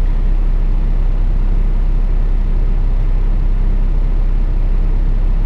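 Steady low engine rumble of an idling vehicle, heard from inside the cab, with no change in pitch or level.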